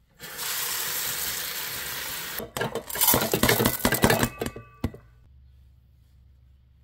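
Rinsed rice poured from a plastic container into a Rival rice cooker's inner pot: a dense clatter of grains striking the pot, with a short metallic ring near the end. Before it comes about two seconds of steady hiss.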